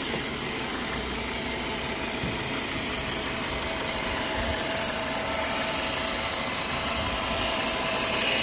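Volvo S60's five-cylinder engine idling steadily, heard close up in the open engine bay.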